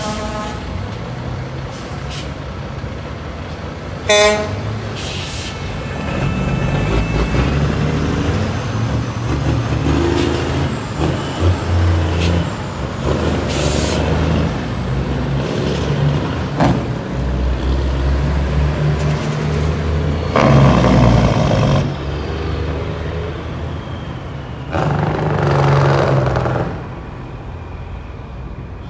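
Heavy semi-truck diesel engines running and pulling under load, their pitch rising and falling, with a short horn toot about four seconds in. Two louder bursts of rushing noise come later on, the first around twenty seconds in.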